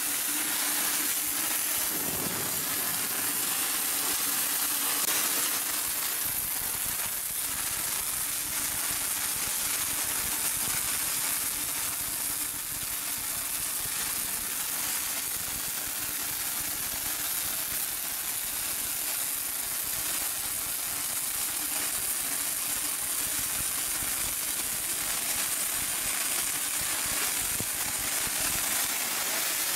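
Automatic MIG welding arcs on a pipe-flange welding line, several torches burning at once with a continuous crackling sizzle. Under it runs a steady low machine hum.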